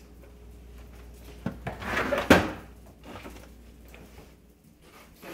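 Side-by-side refrigerator being opened and rummaged: door and shelf clunks and rustling, with a sharp knock a little over two seconds in.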